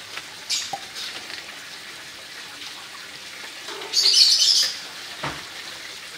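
Noodle broth boiling in a wok, bubbling with small crackles. About four seconds in, a louder hissing sputter lasts about half a second while red chili sauce is poured in, followed by a single knock.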